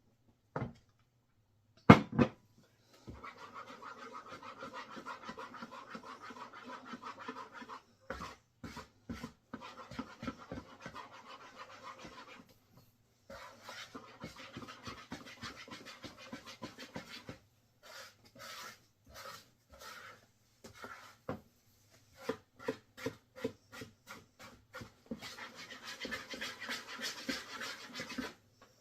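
Wet, sticky bread dough being worked by hand in a mixing bowl, squelching and slapping in quick continuous stretches with short pauses. There is a sharp knock against the bowl about two seconds in.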